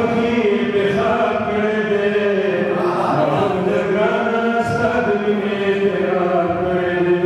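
A man reciting poetry in a slow, melodic chant, drawing out long held notes.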